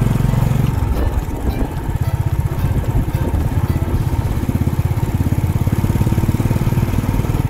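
Motorcycle engine running steadily while riding, a fast even low-pitched firing pulse.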